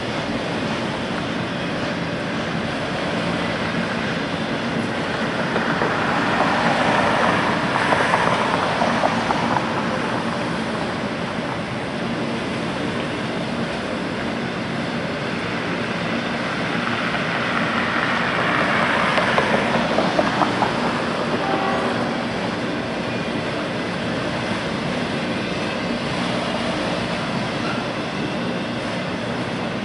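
Freight train of autorack cars rolling past with a steady rumble of steel wheels on rail. It grows louder twice, about seven and nineteen seconds in, with wheels clicking over the rails.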